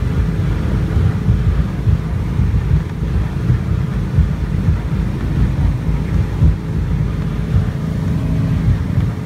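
Small aluminium motorboat's engine running steadily while under way, with wind buffeting the microphone in a constant fluctuating low rumble.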